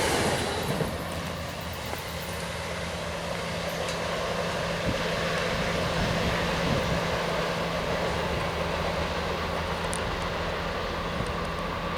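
Commuter train running steadily: a low rumble with a steady low hum under it.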